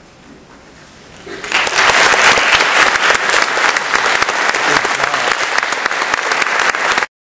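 Concert-hall audience applauding: after a second or so of hush, clapping breaks out and quickly builds to a loud, steady ovation, then cuts off abruptly near the end.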